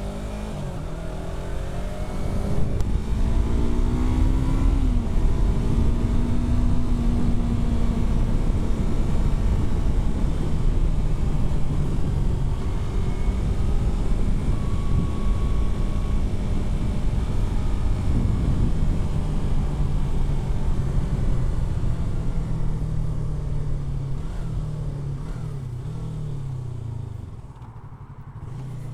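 Yamaha R3's parallel-twin engine under way: its pitch climbs over the first few seconds as it accelerates, then holds steady at cruising speed under a dense rush of noise. Near the end the engine note drops and wavers with a few short rises as it slows, then it picks up again.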